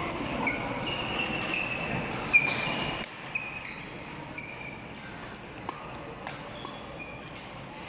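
Court shoes squeaking on a sports hall floor and sharp racket strikes on a shuttlecock during a badminton doubles rally, echoing in a large hall. The background chatter is louder for the first three seconds, and there is one loud crack a little over two seconds in.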